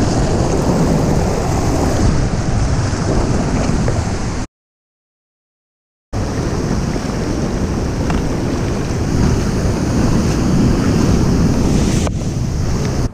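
Loud, steady rush of fast whitewater below a dam spillway, mixed with wind buffeting the microphone. The sound drops out completely for about a second and a half near the middle, then the rushing resumes.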